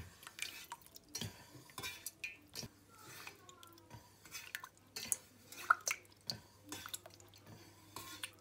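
Fingers squeezing and breaking up rennet-set cheese curd in a stainless steel pot: irregular soft, wet squishes and drips.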